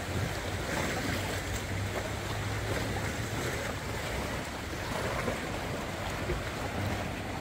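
Sea water lapping and washing against rocks and the board, with wind noise on the microphone.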